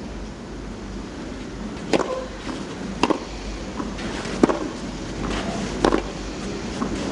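Tennis ball struck back and forth by rackets in a clay-court rally: four sharp hits, a second to a second and a half apart, over a steady background hiss.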